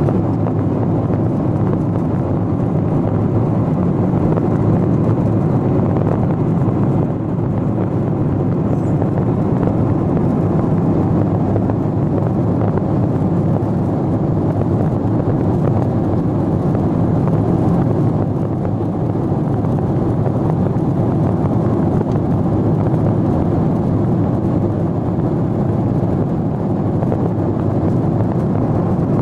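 Airliner cabin noise in flight: the jet engines and the airflow over the fuselage make a steady low rush that does not change.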